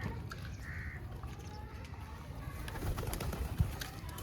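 Pigeons calling softly over a steady low rumble. Scattered sharp clicks and taps come in the second half.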